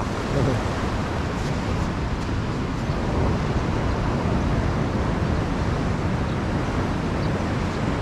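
Steady rush of ocean surf breaking over a coral reef flat.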